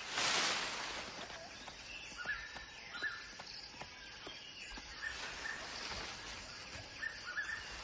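Outdoor nature ambience: birds chirping in short calls a few times over a steady background hiss, with a brief rush of noise at the very start.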